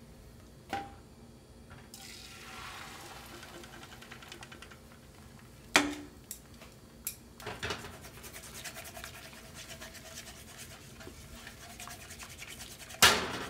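Beaten egg hitting a hot oiled nonstick frying pan about two seconds in and sizzling, then a utensil stirring and scraping quickly through the setting egg, with a few sharp knocks against the pan, the loudest near the end.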